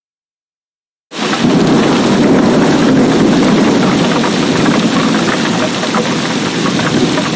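Heavy rain: after about a second of silence, a dense downpour starts abruptly at full strength and pours steadily.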